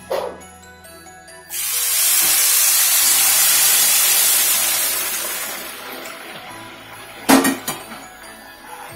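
Boiling water poured into a hot pan of frying rice, hissing and sizzling loudly for about four seconds before dying down. A short sharp clink comes near the end.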